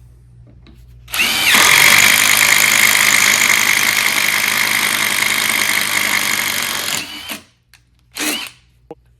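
DeWalt DCF787 impact driver boring a 5/8-inch Diablo self-feeding spade bit through a 2x4. The motor whines up about a second in and the hammer mechanism starts impacting almost immediately under the load of the large bit, running steadily for about six seconds until it makes it through and stops. A short second burst from the driver comes near the end.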